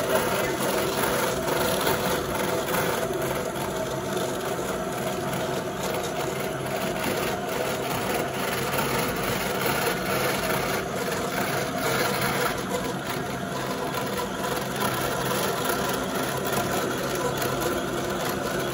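Brother continuous rover carding machine running steadily, its wire-covered carding drums, rollers and chain drives turning as Romney wool is carded. A constant mechanical hum with several steady tones throughout.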